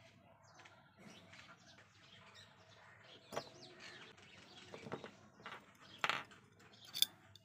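Light metal clicks and taps as steel nails are pushed through the holes of a painted hacksaw frame plate and the plate is handled, the two loudest clicks near the end. Birds chirp faintly in the background.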